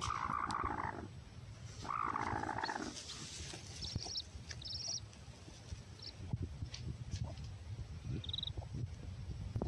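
Broody Aseel hen growling twice, a defensive warning as a hand reaches under her, followed by a few short, high peeps from newly hatched chicks beneath her.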